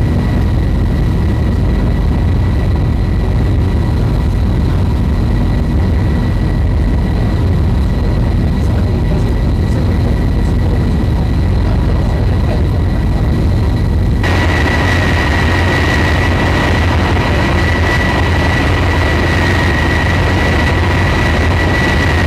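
Steady low rumble of a warship's engines under way, with a constant high whine over it. About fourteen seconds in, a hiss suddenly grows louder and the whine gets stronger.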